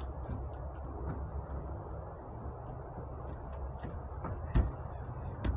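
Scattered small plastic clicks and ticks of a kayak's round rubber-and-plastic hatch cover being worked onto its rim by hand. Two dull thumps near the end, the first the louder, as the cover is pressed down.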